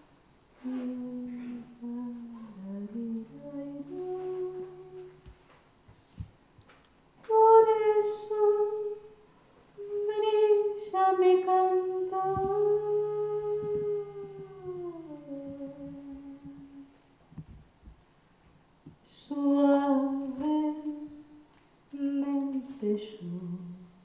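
A woman sings a slow, soft song into a microphone in short phrases with pauses between them. About halfway through she holds one long note that slides down at its end, and a quiet low accompanying note sounds under her voice at times.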